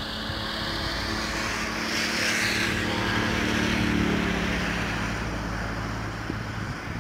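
A car driving past on the road: a steady engine hum and tyre hiss swell to a peak two to four seconds in, then fade away.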